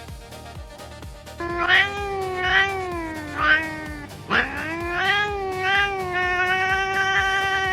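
Domestic cat yowling: two long, drawn-out meows, the first wavering up and down in pitch, the second sliding up at the start and then held steady.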